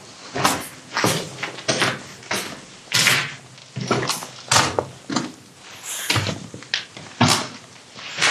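Footsteps crunching over a debris-strewn floor at a steady walking pace, about two steps a second.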